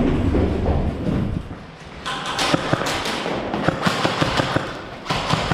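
Airsoft gunfire: a rapid, irregular run of sharp snaps and clicks from guns shooting and BBs striking hard surfaces, starting about two seconds in.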